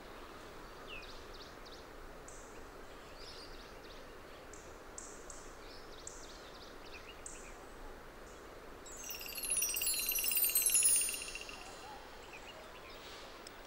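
Quiet woodland ambience with scattered faint bird chirps. About nine seconds in, a bird sings loudly for about two seconds: a fast trill at one pitch with a run of quick falling high notes above it.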